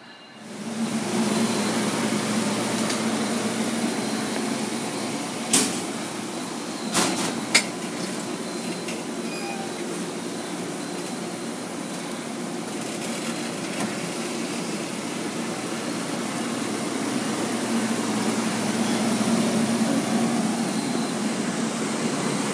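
Amtrak passenger train standing at the platform, its cars giving off a steady ventilation and electrical hum, with a few sharp clanks about six and seven seconds in. Near the end the train begins to move.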